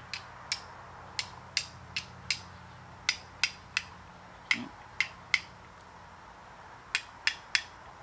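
A fire steel struck against a flint to throw sparks onto tinder: about fifteen sharp, ringing clicks in quick groups of two to four, with short pauses between the groups.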